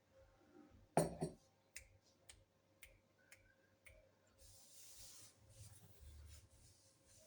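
A sharp double knock about a second in, then a string of light clicks about every half second, followed by a soft high hiss lasting about three seconds.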